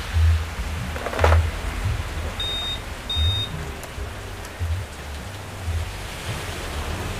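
Steady hiss of heavy rain, with two short high-pitched electronic beeps of the same pitch between two and three and a half seconds in.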